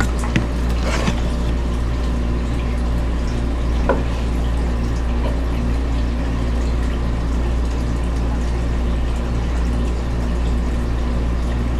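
Steady hum of aquarium pumps and filters, with water running and trickling. A few light knocks come in the first seconds, then once more about four seconds in.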